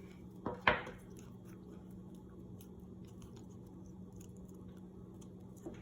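Adhesive tape being handled and pressed onto a popsicle stick: one sharp crackle about half a second in, then faint small crinkles and clicks over a steady low hum.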